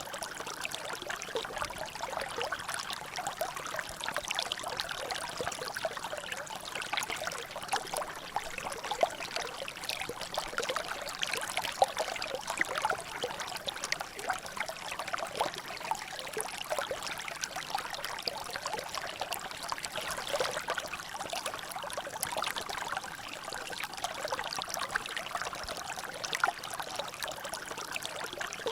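Water trickling and dripping steadily in a small drainage, a dense patter of small splashes.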